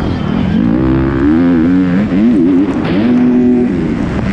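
On-board sound of a Kawasaki KX250 four-stroke motocross bike's single-cylinder engine racing on a dirt track: the revs rise and fall several times as the throttle is worked through the gears, hold steady briefly near the end, then drop, over steady wind rush.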